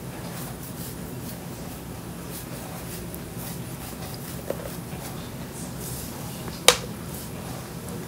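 Plastic-and-metal handling of a dishwasher control board being pressed down onto its housing's plastic pins, with a small click a little past halfway and a sharp click near the end as the pins snap and lock the board in place.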